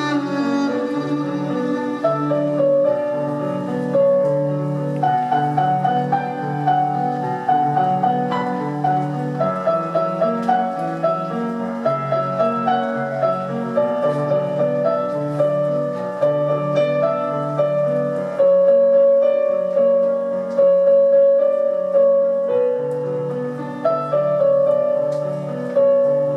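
Slow instrumental music led by piano: a melody of long held notes over a repeating lower accompaniment.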